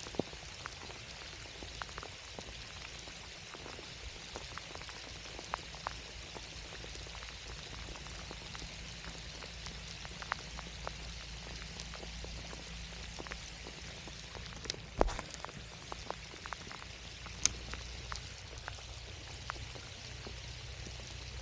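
Steady rain falling, an even hiss with scattered sharper drop ticks close by.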